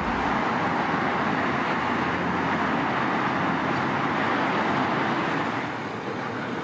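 Road traffic on a city street: a steady hiss of cars and tyres going past, easing slightly about five and a half seconds in.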